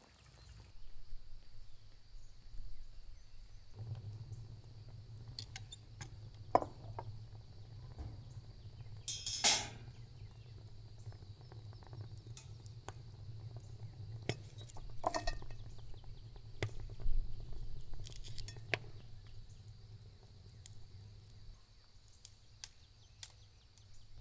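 Metal tongs clicking against a metal grill grate as whole vegetables are set down on it: a scattering of short clicks and knocks, with a longer clatter a little before halfway, over a faint low hum.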